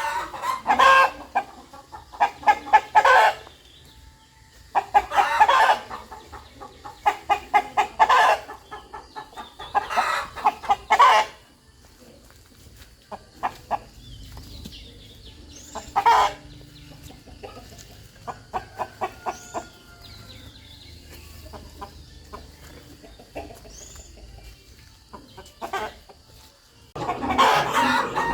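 Rooster clucking in quick runs of clucks, loud groups every couple of seconds at first, then sparser and quieter clucks with faint high chirps of small birds. Loud, dense clucking returns near the end.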